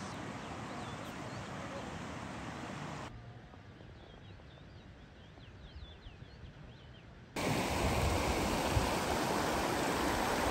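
Shallow rocky mountain river rushing, loud and steady, cutting in suddenly about seven seconds in. Before it, softer outdoor background noise with faint high chirping calls.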